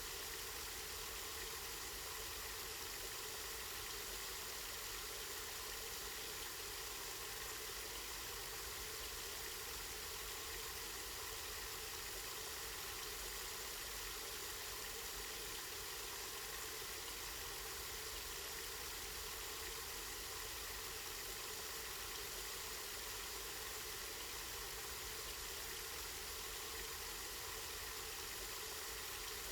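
Spring water flowing and splashing steadily, an even rushing with no breaks.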